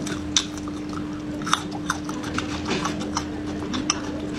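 Close-up chewing of raw garlic: irregular crisp crunches, several a second, over a steady low hum.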